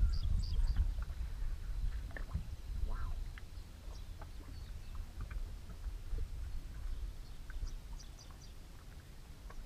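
Steady low wind noise on the microphone, with short, high bird chirps in the first second and again near the end.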